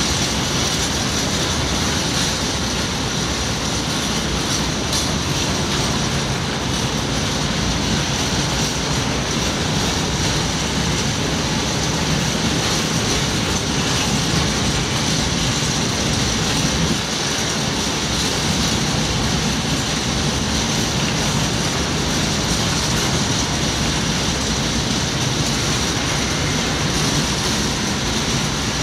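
Rake of open freight wagons in an engineering train rolling past: a steady, unbroken rumble and rattle of steel wheels on the rails.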